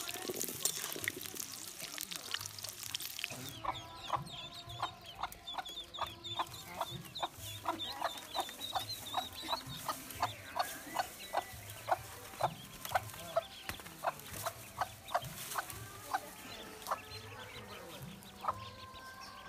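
Potatoes sizzling and crackling in hot oil in a wok for the first few seconds. Then a brooding hen clucking over and over, about two short clucks a second, with ducklings peeping high above.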